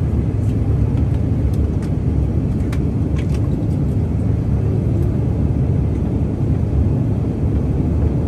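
Steady low rumble of engine and airflow noise inside the cabin of a CRJ-700 regional jet climbing after takeoff, its two rear-mounted GE CF34 turbofans at climb power.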